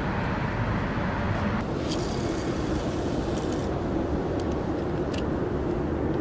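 Steady outdoor background rumble, like distant traffic. About two seconds in, a hiss lasting about two seconds rises over it, and a faint steady hum sets in.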